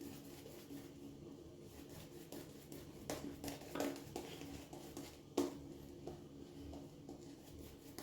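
Shaving brush working Mitchell's Wool Fat lather: faint soft brushing, with a few light knocks about three, four and five and a half seconds in, over a low steady hum. The lather is still building, just starting to turn creamy.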